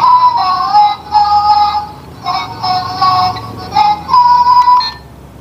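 Tinny electronic tune played by the toy RC dump truck's remote control: a simple melody of held beeping notes in short phrases with brief gaps, cutting off about five seconds in.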